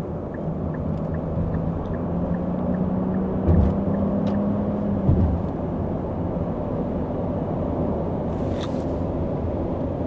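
Steady road and drivetrain drone inside a 2023 Nissan X-Trail's cabin at highway speed. A faint low hum rises slightly over the first few seconds and stops about five seconds in, with two light thumps near the middle.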